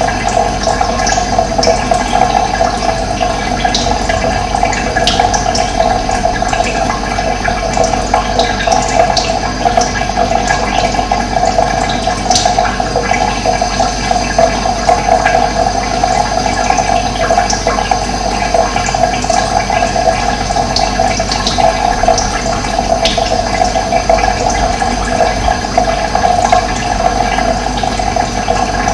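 Running water, a steady rushing, with brief high bird chirps here and there.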